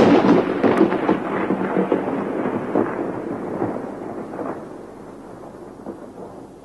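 Thunder sound effect: a sudden clap followed by a long rolling rumble that slowly fades over several seconds.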